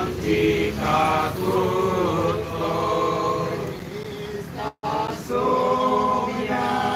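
A small group of worshippers singing a devotional hymn together in unison, with long held notes. About five seconds in the sound cuts out completely for a split second.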